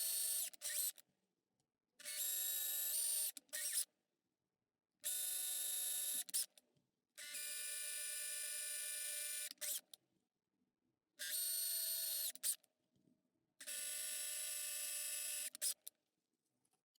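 A small handheld power tool's motor is run in repeated short bursts of one to two and a half seconds, each a steady whine that stops abruptly.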